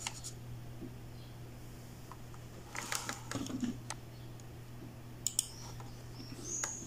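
A cluster of light computer-keyboard clicks about three seconds in and a couple more past five seconds, over a low steady hum. Faint high bird chirps come in near the end.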